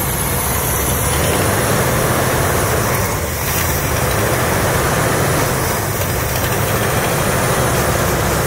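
A classic car's carbureted eight-cylinder engine idling steadily with the air cleaner off while a carbon-cleaning fluid is poured into the open carburetor. The engine has low compression on two cylinders, which is blamed on carbon-gummed piston rings.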